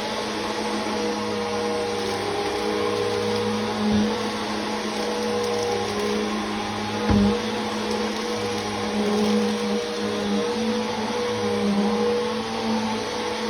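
Vacuum cleaner motor running steadily with a constant hum and hiss of suction, with two dull bumps, about four and seven seconds in.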